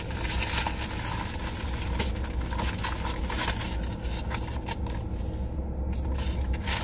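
Steady low hum of a car engine idling, heard from inside the cabin, with light rustling over it.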